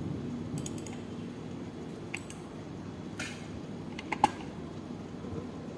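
A few light plastic clicks from a wired computer mouse being used, scattered over a faint steady background, the loudest about four seconds in.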